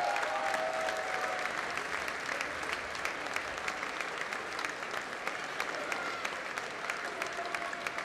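Crowd applauding in a gymnasium: many hands clapping at once in a dense, steady patter, with single sharp claps standing out, easing off slightly over the seconds.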